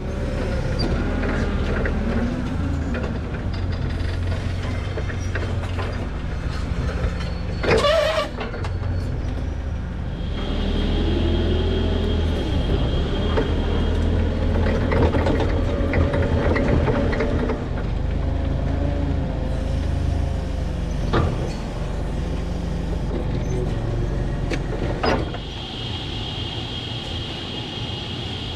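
A heavy vehicle's engine running steadily, with squeals and clanks over it and one loud short squeal about eight seconds in.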